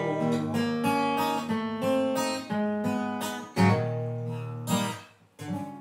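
Solo blues guitar playing the closing phrase of a song: picked notes, then strummed chords struck about three and a half and four and a half seconds in, ending on a final chord that rings out and fades near the end.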